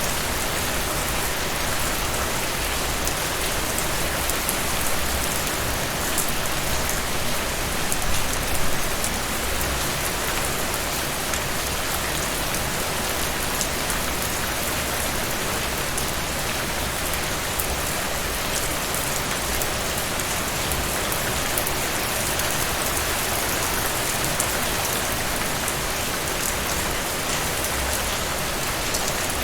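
Steady rainfall, with a dense patter of drops hitting a surface.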